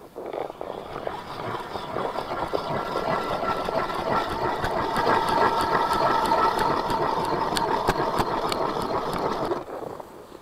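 A motor running steadily with a whine, growing slightly louder, with quick regular clicks in its later part, and cutting off about nine and a half seconds in.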